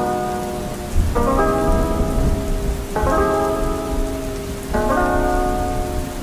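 Steady rain with a low rumble of thunder from about a second in, mixed with soft music whose chords change about every two seconds.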